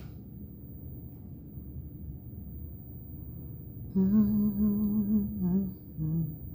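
A woman humming to herself: faint room noise, then about four seconds in a held, slightly wavering hummed note lasting under two seconds, followed by a short second hum.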